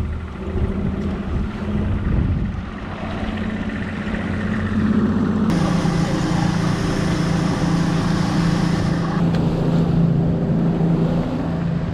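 Evinrude 150 outboard motor running the boat at speed, a steady engine hum under the rush of wind and wake water; the engine's pitch climbs a little partway through.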